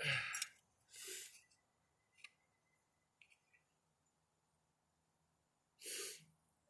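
Mostly quiet, with two short soft puffs of air, about a second in and near the end, and a faint click in between from a steel foothold trap being handled.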